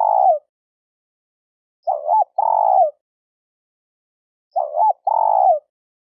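Spotted dove cooing: a repeated two-part phrase, a short note then a longer falling coo, coming about every two and a half seconds with clean silence between.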